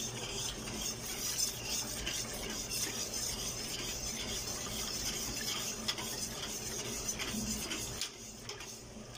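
Wire balloon whisk stirring a hot milk-and-cornstarch mixture in a large stainless steel stockpot, the wires scraping and clicking against the pot in a steady run of small clinks. The stirring eases off near the end.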